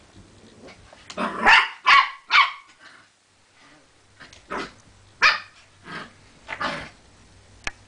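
Pumi puppies barking in play: three loud barks in quick succession about a second in, then several more scattered, softer barks.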